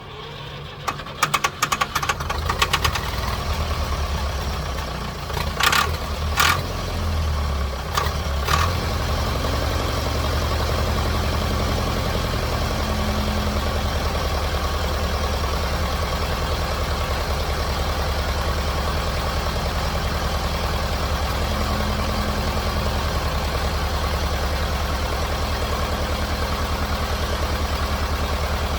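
1958 Fordson Major diesel tractor engine starting after decades standing: a rapid run of sharp knocks in the first few seconds and three loud bangs a few seconds later, then settling into a steady run. It is misfiring, as the owner says.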